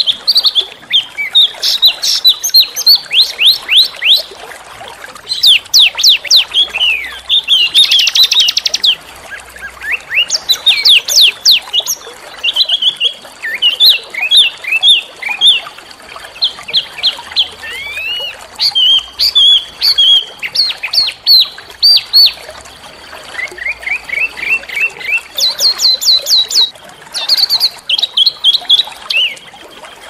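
A small songbird singing a rapid, harsh song of loud, sharp chirps. The notes come in quick runs of high, downward-sweeping calls and trills, with a short buzzy rattle about eight seconds in and brief pauses between phrases.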